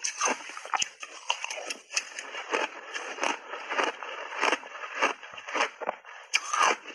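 Close-miked crunching and chewing of refrozen passionfruit shaved ice coated in matcha powder: irregular crisp crunches, several a second.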